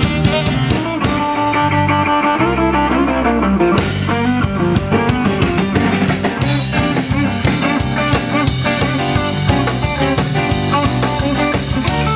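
Live band playing amplified music: electric guitar over bass, keyboard and a drum kit.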